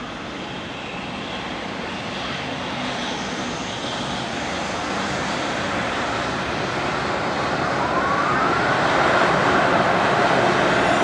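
EH200 electric freight locomotive approaching along a viaduct, its running noise growing steadily louder as it nears, with a short rising whine about eight seconds in. The locomotive is using its dynamic brake to bring the freight train to a stop.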